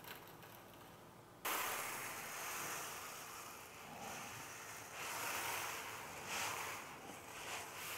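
Freshly rinsed stainless-steel spiral-prismatic column packing (SPN), thousands of tiny wire coils, being poured from a plastic colander onto a metal baking tray: a steady hissing, rattling rush. It starts suddenly about a second and a half in and swells twice near the end.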